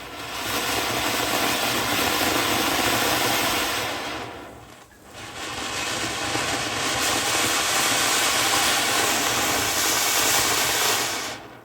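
Ground fireworks burning with a loud, steady hiss as they spray sparks, one for about four seconds, then after a short dip another for about six seconds that cuts off abruptly.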